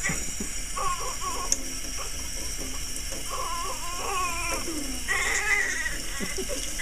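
A newborn baby crying in several wavering wails while his hair is washed, the last wail higher and louder.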